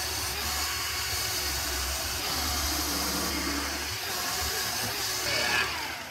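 Milwaukee cordless polisher running steadily with a lamb's wool pad on a stainless steel fuel tank, a continuous whirring hiss that dies away near the end. The lamb's wool pad has torn away from the tool, which the owner puts down to it having sat unused for two or three years.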